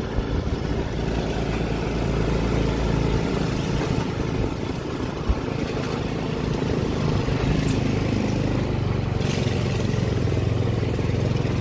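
Small motorbike engine running steadily as it travels along a dirt road, its note rising and strengthening a little in the second half.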